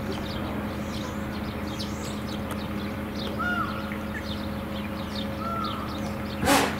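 Small birds chirping over a steady low hum, with two short arched whistled calls in the middle and one loud harsh call, like a crow's caw, near the end.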